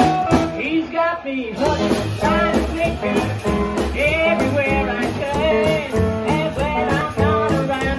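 Live rockabilly band playing: upright double bass, electric guitar and drums with a steady driving beat, and a woman singing lead.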